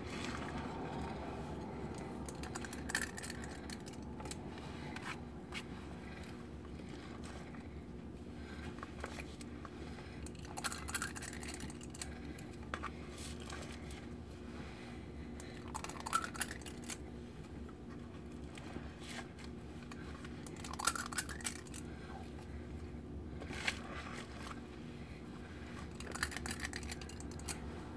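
Ice cream scoop portioning cookie dough onto a lined baking sheet: faint, scattered clicks and scrapes every few seconds over a steady low hum.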